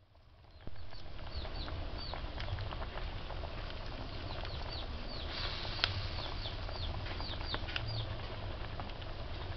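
Birds chirping repeatedly in short, falling peeps over the steady bubbling of soup boiling hard in a wok on a wood fire, with scattered crackles.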